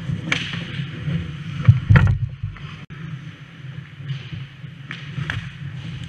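Ice hockey play picked up by a camera inside the goal net: skate blades scraping the ice and sharp knocks of sticks and puck, over a steady low hum. The loudest knock comes about two seconds in, with others about a third of a second in and a few seconds later.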